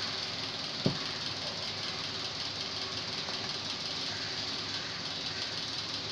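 Goat meat curry boiling hard in a steel pot, giving a steady bubbling hiss, while a wooden spatula stirs through it. About a second in, the spatula knocks once sharply against the pot.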